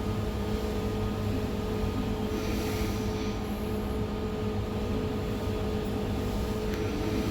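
A ship's engines running steadily: a low rumble with a constant hum that neither rises nor falls.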